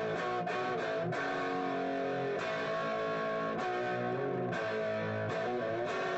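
Guitar-led music with chords that change about every second.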